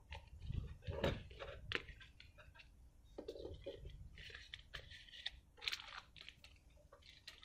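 Light handling noise from cardboard board-game pieces being shuffled and tapped together, along with a clear plastic bag crinkling, in short irregular clicks and rustles.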